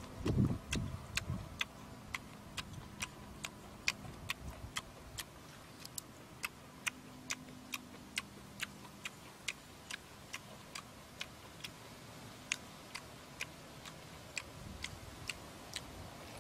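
Steady regular ticking, sharp clicks about two and a half a second, with a few dull low thumps near the start.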